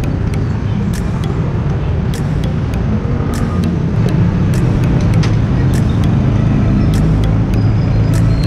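Steady low rumble of road traffic, with scattered light metallic clicks and clinks of a ladle and lid on an aluminium taho container.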